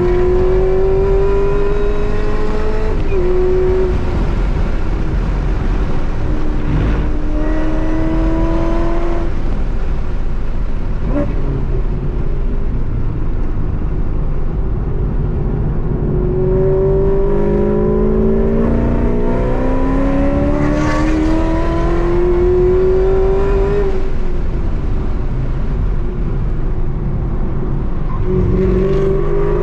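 Supercharged 6.2-litre V8 of a Camaro ZL1 1LE heard from inside the cabin at full throttle on track, its note climbing with each pull and stepping down at the gear changes. It eases off through the middle as the car slows for a tighter section, climbs hard again, drops at about 24 seconds, and starts pulling again near the end.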